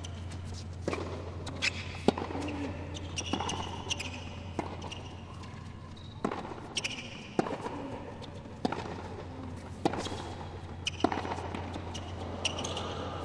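Tennis rally on a hard court: sharp racket strikes and ball bounces, about one a second, over a low steady hum.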